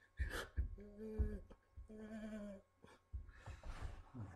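A man's voice humming two short held notes without words, among low knocks from the handheld camera being moved, and a breathy rush of air a little after three seconds in.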